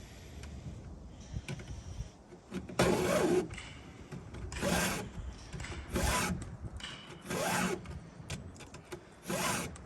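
Stihl 2-in-1 chainsaw file drawn by hand across the saw chain's cutters: five separate file strokes, each about half a second long and spaced one to two seconds apart.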